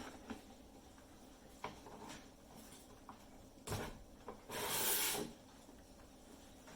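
Handling of a newly unboxed wood lathe and its packaging: a few light knocks, a sharper knock a little before four seconds in, then a short scraping rustle, the loudest sound.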